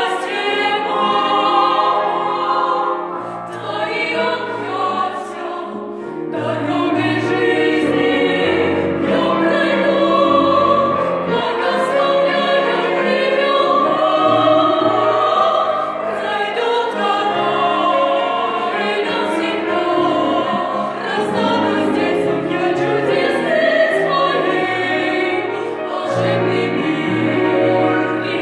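A vocal ensemble singing together in chorus, with piano accompaniment.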